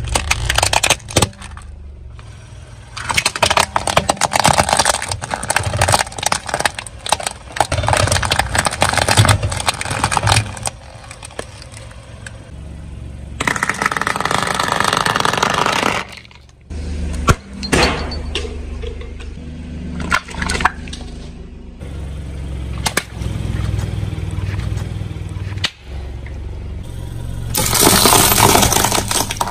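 A run of objects crushed under a car tyre: plastic cracking, snapping and crunching in short bursts, starting with a plastic toy tank, with a low car engine rumble underneath. The sound breaks off several times as one crush gives way to the next.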